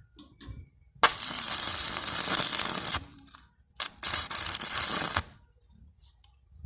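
Two loud bursts of harsh, hissing noise from metalworking on a steel gate while a lock is being fitted. The first lasts about two seconds and the second just over a second, each starting and stopping abruptly.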